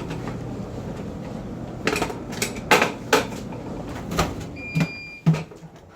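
Bosch clothes dryer running with a steady low hum, then a string of knocks and clunks, a short electronic beep and the hum dying away near the end.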